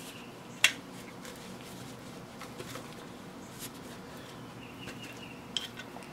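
Gloved hands working grease around the inside of the steel barrel of a Coats 5030A tire machine's rim clamp air cylinder: faint rubbing and squeaks with small ticks, a sharp click a little over half a second in and a lighter click near the end.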